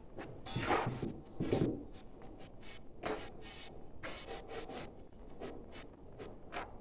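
Light scraping and rubbing, a run of short strokes that come two or three a second at times, from hand work on the stove's parts.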